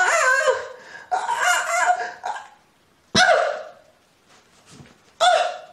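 A man's voice making squawky, bird-like noises without words for a puppet character, in about five short bursts with sliding pitch.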